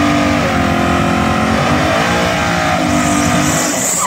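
Race car's engine held at high revs during a burnout, its pitch rising and falling in steps as the throttle is worked. A hiss of spinning tyres joins in about three seconds in.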